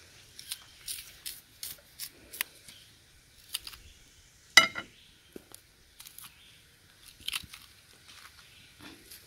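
A knife slitting and peeling the skins off green bananas: a string of short crisp snaps and cuts. About halfway through comes one much louder sharp click with a brief ring.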